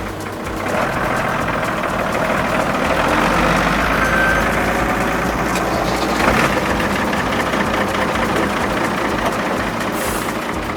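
Steady engine running, like a truck engine idling, with a short high hiss near the end.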